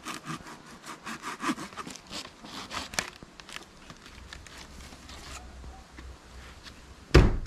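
Handsaw cutting through wood in quick back-and-forth strokes that stop after about three and a half seconds. A loud thump comes near the end.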